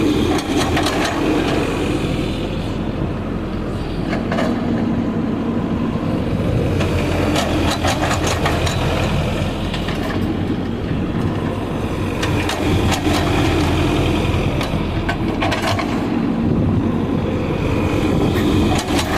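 Hydraulic excavator's diesel engine running under load, swelling and easing at times as it works, with scattered clanks and knocks.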